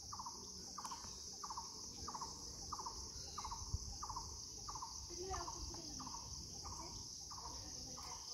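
Insects, crickets or cicadas, keep up a steady high buzz. Over it a short falling chirp repeats evenly, about twice a second.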